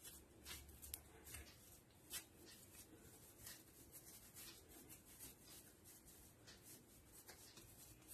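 Near silence, with faint soft rubbing and occasional light taps of hands rolling and pressing a ball of kneaded flour dough over a plate.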